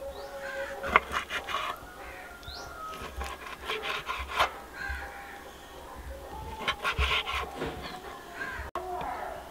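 Kitchen knife slicing raw beef kidney on a wooden chopping board, the blade tapping the board sharply a few times. Faint bird calls in the background.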